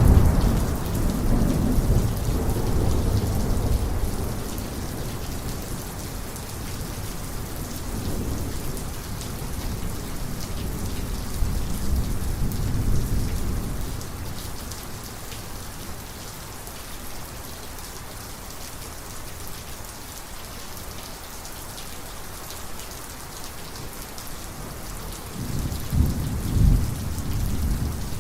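Heavy thunderstorm: steady rain falling, with thunder rumbling. A loud roll of thunder fades over the first few seconds, lighter rumbles swell about eight and twelve seconds in, and a fresh peal starts a few seconds before the end.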